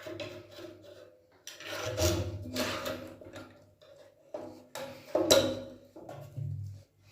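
Rough scraping and knocking of tools working on an electric water heater's assembly, in a series of uneven strokes, the loudest about two seconds in and again near the five-second mark.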